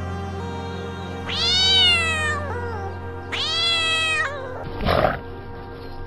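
Two drawn-out animal calls, each rising then falling in pitch, over steady soft background music, followed by a short noisy burst about five seconds in.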